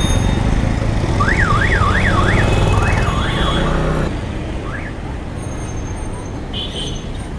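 An electronic siren warbling quickly up and down, about three sweeps a second for a couple of seconds, with one more sweep after a pause. Under it a motorcycle engine idles, then cuts off about four seconds in.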